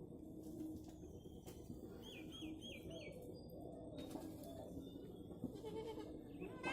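Goats bleating on a goat farm, with a small bird giving four quick chirps about two seconds in.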